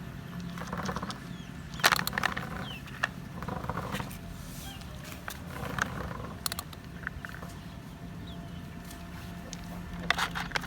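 Plastic toys being handled: scattered clicks and knocks, a cluster about two seconds in and another near the end, over a steady low hum.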